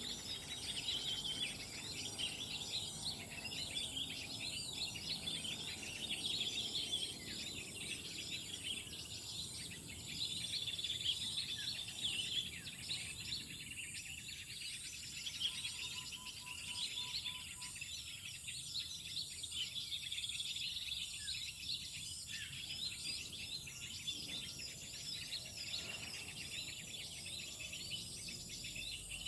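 Many small birds chirping and calling busily, over a steady high-pitched whine. About halfway through, a short run of low, evenly repeated notes stands out.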